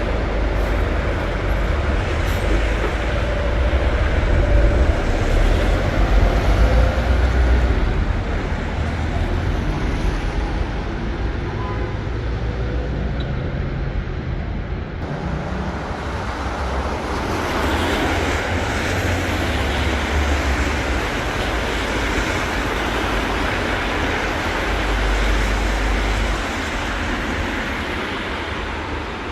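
Street traffic in the rain: buses and cars pass with a deep engine rumble that swells several times, over a steady hiss of tyres and rain on the wet road.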